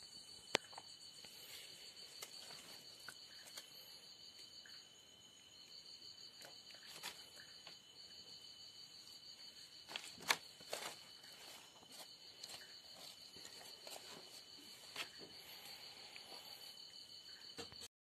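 Insects, crickets by their sound, trilling steadily at a high pitch in two pulsing tones. Scattered soft clicks occur throughout, with sharper ticks about half a second and ten seconds in. The trilling cuts off just before the end.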